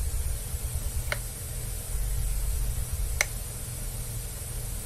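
A light switch clicked twice, about two seconds apart, over the steady low hum and hiss of old camcorder audio.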